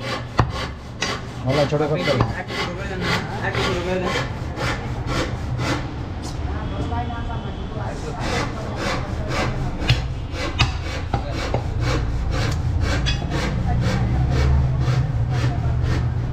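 A butcher's cleaver chopping goat meat on a wooden log block: a steady run of sharp knocks, about three a second, over a low hum.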